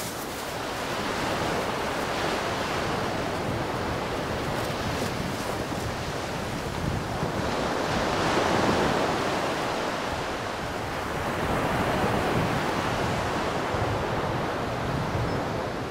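Small waves breaking and washing up a pebble beach, swelling and falling back in slow surges, the biggest about halfway through, with wind buffeting the microphone.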